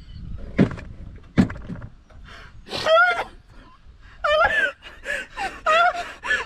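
Two short, sharp sounds near the start, then two women break into high-pitched shrieking laughter in repeated bursts.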